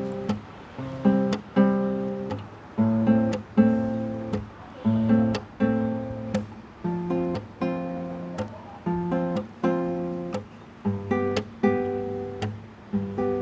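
Nylon-string classical guitar strumming chords in a slow, even rhythm of about two strums a second, with no voice: the instrumental introduction to a song.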